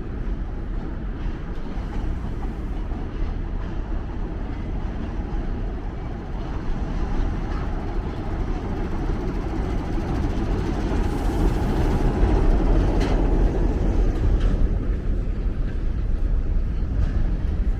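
A train passing below: a locomotive hauls passenger coaches along the station tracks in a steady low rumble that grows louder toward the middle.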